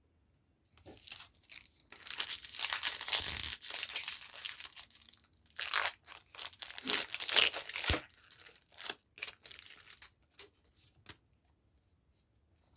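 Foil wrapper of a Pokémon card booster pack being torn open, with long stretches of ripping and crinkling about two seconds in and again around six seconds. Lighter rustling and clicks follow.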